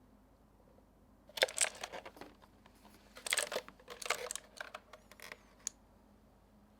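Handling noises from the keyboard and its wrapping: a few seconds of crinkly rustling mixed with sharp clicks and light knocks, starting over a second in and stopping about a second before the end.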